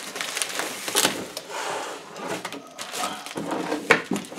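Unpacking noise: a bubble-wrapped unit lifted out of a cardboard box and paper sheets handled, with crinkling plastic, rustling paper and irregular light knocks, the sharpest near the end.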